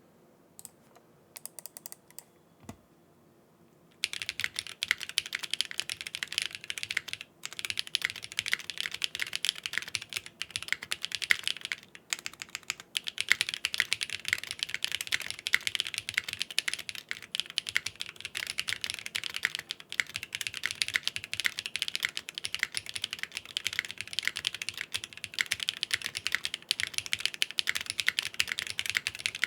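Typing on a Geonworks W1-AT mechanical keyboard with BSUN BCP linear switches and GMK keycaps, built top-mount and plateless on a flexible 1.2 mm PCB. A few scattered keystrokes come first, then fast continuous typing starts about four seconds in, with a couple of brief pauses.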